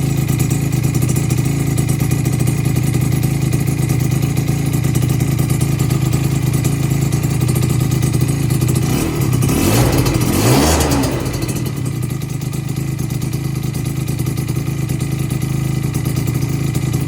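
Rebuilt two-stroke engine with ported cylinder and a full expansion chamber running at a steady idle, blipped once about nine seconds in, its pitch rising and falling back within a couple of seconds.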